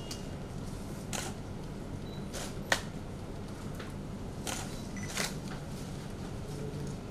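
Camera shutters clicking several times in quick, separate shots, the sharpest about two and a half seconds in, over a steady low room hum.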